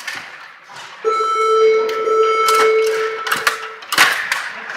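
An electronic buzzer sounds one steady, mid-pitched tone for nearly three seconds, over the quick clicking and clattering of Stiga table hockey rods and players. A sharp knock comes near the end.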